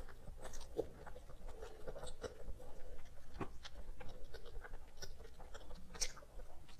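A person chewing a bite of chocolate close to the microphone, with scattered small irregular crunchy clicks.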